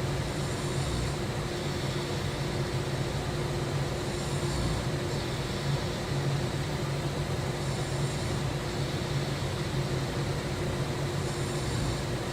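A person snoring in a slow, steady rhythm, about one breath every three and a half to four seconds.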